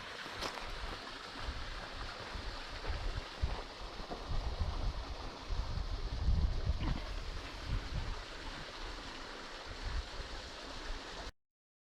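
Creek water flowing steadily, with gusts of wind rumbling on the microphone. The sound cuts off abruptly near the end.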